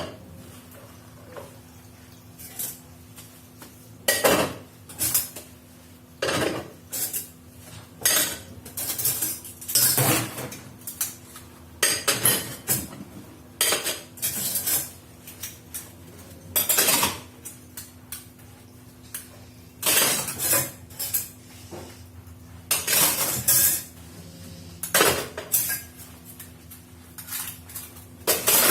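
Dishes and cutlery being washed by hand: plates, pots and utensils knocking and clinking together in irregular clatters, over a steady low hum.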